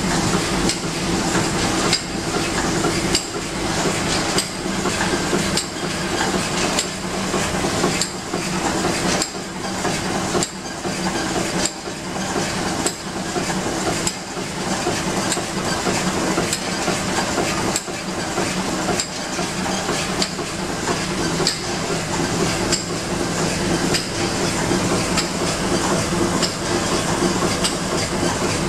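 BAOPACK CB-VG42A vertical form-fill-seal pouch packing machine running: a steady mechanical hum with a regular clack about once a second as it cycles.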